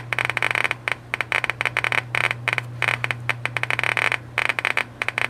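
Eberline RM-20 Geiger counter clicking rapidly and irregularly as its probe picks up radiation from a trinitite sample, about 1,000 counts per minute, over a steady low hum.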